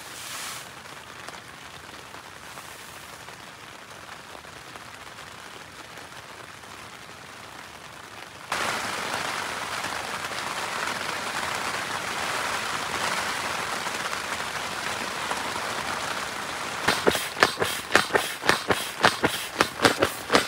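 Steady rain on a tent's fabric, fainter at first and louder from about eight seconds in. From about seventeen seconds in, a small bellows pump puffs rhythmically, about three strokes a second, as it inflates an air mattress.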